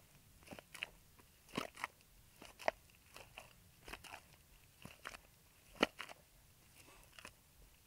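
Irregular crunches and sharp knocks, about a dozen spread unevenly, the two loudest about two and a half and six seconds in, as materials are handled by hand.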